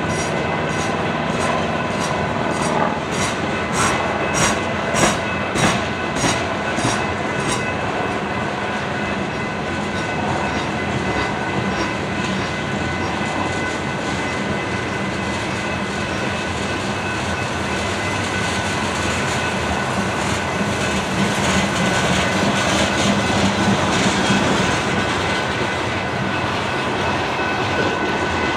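A long coal train's open-top hopper cars rolling past, their wheels clicking rapidly over rail joints for the first several seconds before settling into a steady rumble of rolling wheels. A thin, steady high squeal from the wheels runs underneath.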